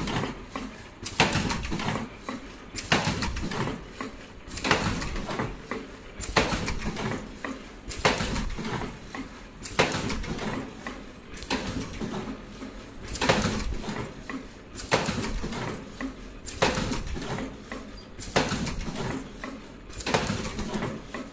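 Richpeace automatic surgical mask machine running, its cycle repeating about every 1.7 seconds: a sharp clack on each stroke, lighter clicks between, and a faint high whine that pulses with the cycle.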